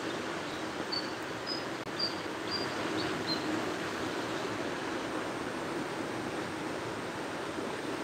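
Small waves washing steadily onto a sandy beach. About a second in, a bird gives a quick run of six or seven short, high chirps, roughly two a second.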